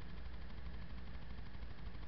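Car engine idling, a steady low rumble heard from inside the cabin.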